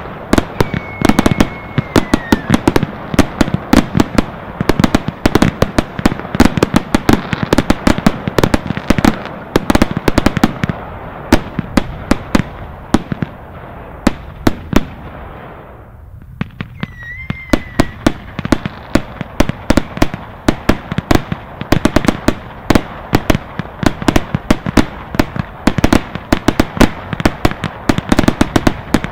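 Consumer fireworks batteries firing: a dense run of rapid bangs and crackles that thins to a lull about halfway through, then picks up again. A short falling whistle sounds about a second in, and another brief whistle comes just after the lull.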